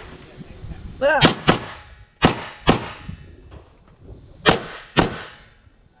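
CZ Czechmate compensated 9mm open-class pistol firing rapid shots in three quick pairs, each pair a fraction of a second apart.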